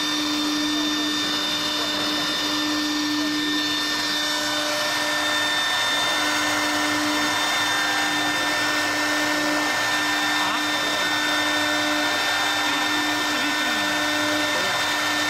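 CNC wood-turning lathe's router spindle running at a constant high speed while the machine works, giving a steady whine over a wide, even machining noise.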